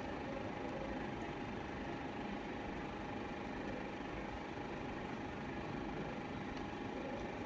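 Steady background hum with a faint constant tone running under it, and no distinct events.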